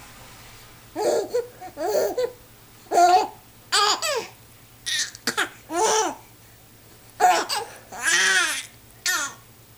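A child with the hiccups laughing in short, high-pitched bursts about once a second, with one longer breathy laugh near the end.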